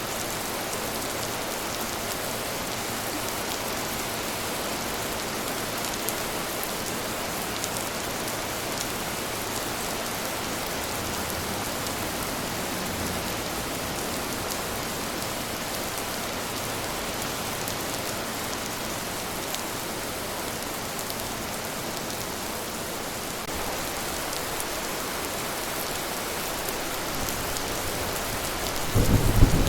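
Steady rain falling, an even hiss with fine drop ticks. About a second before the end a low rumble of thunder breaks in, louder than the rain.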